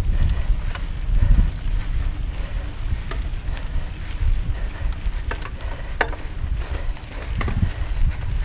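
Wind buffeting the camera microphone as a mountain bike rides fast over a dirt trail, a steady low rumble with the tyres on the dirt. Sharp clicks and rattles from the bike over bumps come through several times, most clearly in the middle and near the end.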